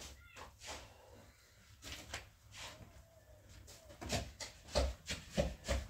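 Irregular knocks and light clatter of hard objects being handled, sparse at first and then quicker and louder for the last couple of seconds.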